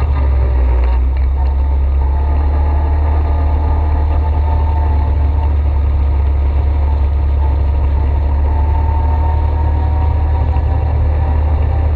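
ATV engine running steadily with a deep, even rumble that does not change much.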